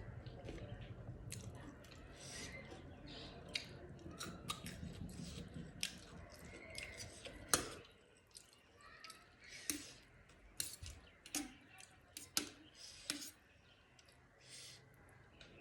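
A person chewing and crunching food close to the microphone: many sharp, crisp snaps and clicks, with softer wet mouth sounds in the first half.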